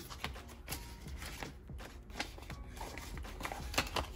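A crisp paper banknote and a paper cash envelope in a plastic sleeve being handled: irregular rustles, crinkles and light taps as a $100 bill is folded and slid into the envelope.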